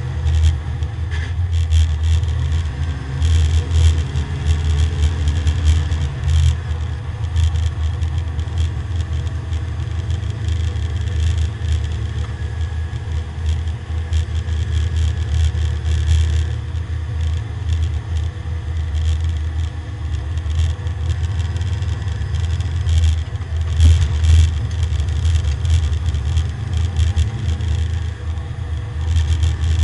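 Porsche 924 race car's engine running under load at speed, heard from inside the stripped, roll-caged cabin as a loud, deep, steady drone mixed with road and tyre noise.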